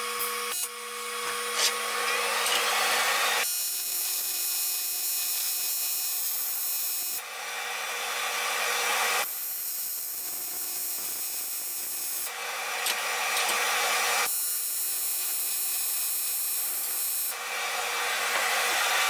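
AC TIG welding arc on 7075 aluminium, fusing a tee joint with filler rod: a steady buzzing hiss with a low hum under it. The tone of the buzz changes every two to four seconds.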